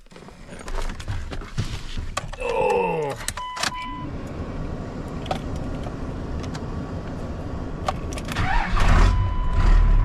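Keys jangling and rattling in the cab of a pickup truck, with a short electronic tone as the ignition comes on. Near the end the truck's engine is cranked and catches on a cold start in freezing weather, settling into a steady idle.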